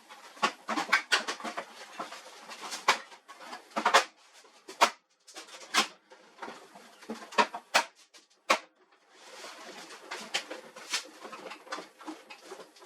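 Irregular clicks, knocks and rustles of hard parts being handled, a couple of dozen over the stretch, with a short lull about five seconds in.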